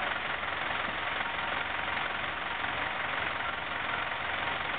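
Crane's engine running steadily during the lift, an even rumble with no sudden knocks.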